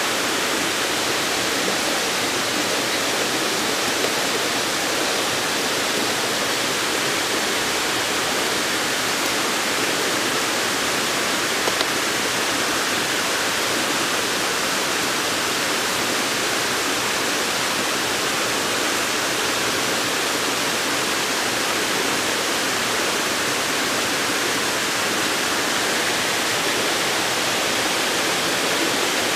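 Waterfall rushing steadily, a constant even wash of falling water.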